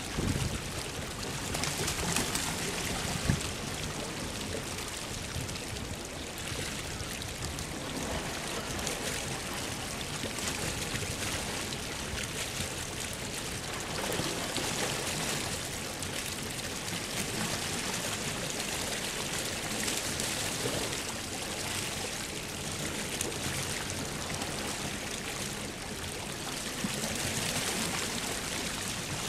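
Steady rush of creek water pouring over a concrete weir and churning in the pool below, with one short knock about three seconds in.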